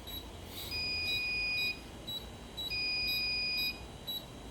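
Fire alarm system sounders beeping: a long electronic tone about a second long, twice, two seconds apart, over short chirps about twice a second. This is the audible signal of an alarm condition on the panel that has not yet cleared.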